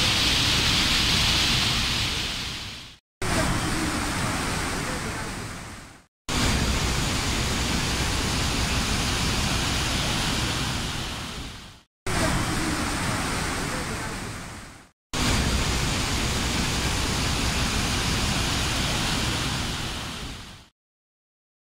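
Fast, muddy river rushing through rapids and over a weir, a steady loud hiss of water. It comes in five pieces that each fade and cut off into a brief silence, and goes silent about a second before the end.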